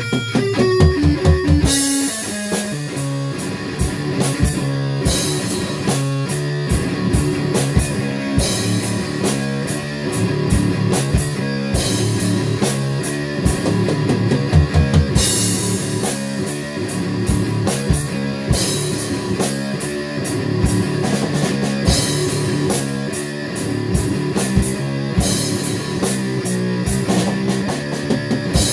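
Rock music: electric guitar with a full drum kit that comes in about two seconds in, with cymbal crashes every three to four seconds.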